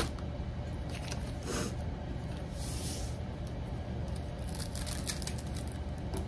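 Hands handling a diamond painting canvas on a wooden table: a sharp tap at the start, then soft rustles and a brief sliding hiss as the canvas is smoothed flat, with a few small ticks later, over a low steady hum.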